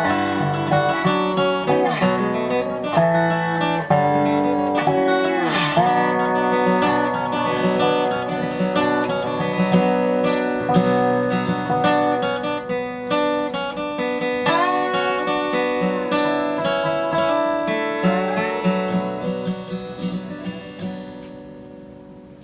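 Instrumental dobro music: a resonator guitar played with picked notes and slides that bend up and down in pitch. It fades out near the end.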